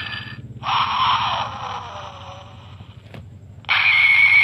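Gingaman DX Ginga Brace toy bracelet playing electronic sound effects through its small speaker: one sound cuts off just after the start, a longer one follows and fades with a falling tone, a button clicks about three seconds in, then another bright, high-pitched effect starts near the end.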